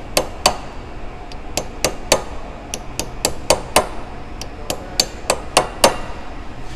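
Hammer tapping metal on a 1957 Snap-on L-710 half-inch ratchet held in a bench vise: about eighteen sharp taps, roughly three a second and unevenly spaced. The taps peen the ratchet head over to hold the newly fitted selector switch in place.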